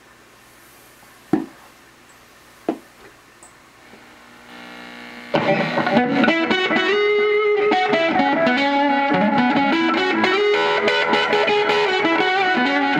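Two sharp clicks, then about five seconds in an electric guitar (a Washburn Idol through a Budda Superdrive 30 amp) comes in and plays improvised melodic lead lines with overdrive, delay and reverb over a backing of the song's chords.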